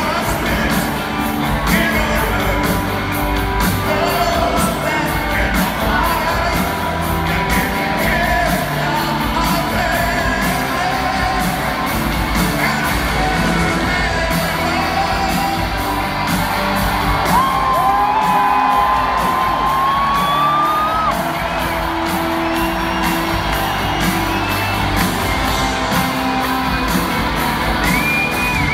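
Live rock band playing through an arena sound system, heard from the stands with the hall's echo, with singing and whoops and yells from the crowd.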